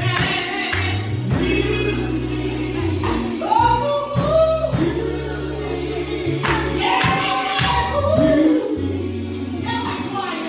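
Gospel choir singing with band accompaniment: sustained low bass notes under the voices and a drum beat of about two strokes a second.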